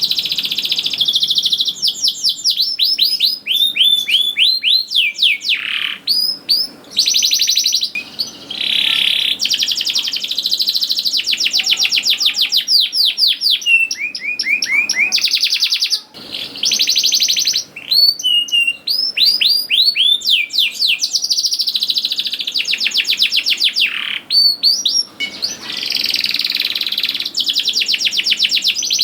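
Domestic canary singing a long, continuous song: fast trills and runs of rapidly repeated falling notes, broken by a few brief pauses.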